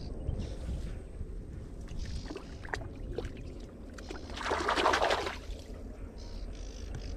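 Handling noise as a small caught fish is worked off a fishing hook: a few light clicks and rustles, then a louder rustling scrape lasting about a second, over a low steady rumble.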